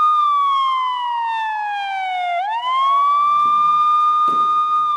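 Police car siren wailing: a high tone holds, slides slowly down for about two seconds, sweeps quickly back up, holds, and starts falling again near the end.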